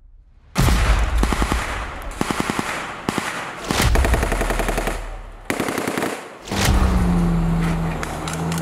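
Rapid automatic gunfire from soldiers' rifles fired off the back of a tactical vehicle, in several bursts starting about half a second in. Near the end a steady military truck engine running takes over.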